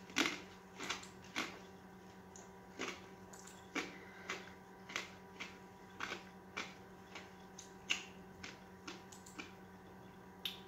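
Faint, irregular sharp clicks, roughly two a second, from someone working a computer, over a steady electrical hum.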